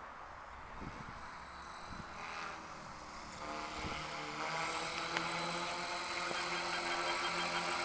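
3DX500 electric RC helicopter in flight: its rotor buzz and high motor whine grow louder about three and a half seconds in.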